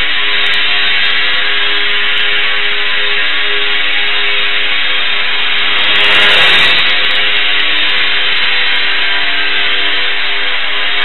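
Small electric motor and propeller of an ultra-micro RC aircraft buzzing steadily, heard through a tiny onboard camera microphone. The sound swells briefly about six seconds in as the UMX Extra 300 passes close by.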